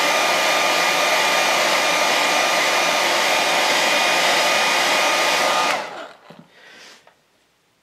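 Handheld hair dryer blowing on freshly airbrushed paint to dry it: a steady rush of air with a thin whine, cut off abruptly about six seconds in.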